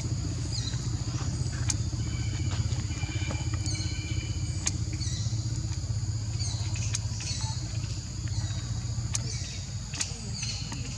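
Steady low hum of an engine running, with short high chirps falling in pitch every second or so and a few sharp clicks.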